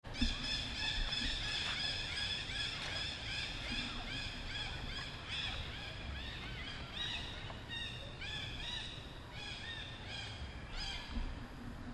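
A dense chorus of high-pitched animal calls, many short chirping calls repeating rapidly and overlapping, over a low rumble.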